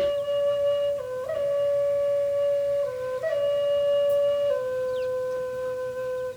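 Music on an IAMSOUND A4 triple drone flute: slow, long held notes that step between a few nearby pitches about every one to two seconds, then break off at the end.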